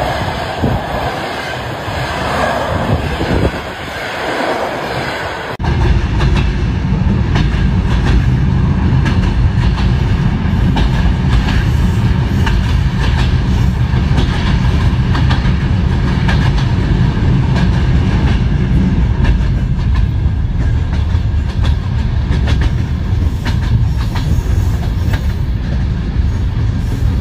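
Passenger coaches rolling along a station platform. About six seconds in this cuts to the loud low rumble and irregular clickety-clack of wheels on the rails, heard from inside a moving passenger coach.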